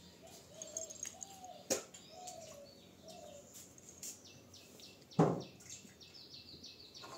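Small birds chirping steadily, with a quick run of chirps near the end. A sharp knock about five seconds in, and a lighter one near two seconds, as a metal vacuum flask is set down on a table.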